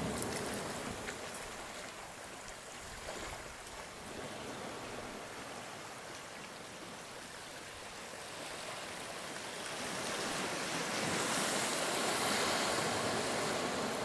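Ocean surf washing on a beach, a steady rushing hiss that swells louder about two-thirds of the way through.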